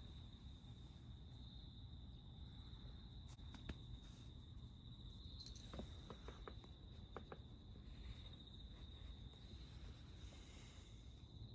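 Faint, steady high-pitched insect trill, typical of a cricket, over a low rumble, with a few light clicks about halfway through.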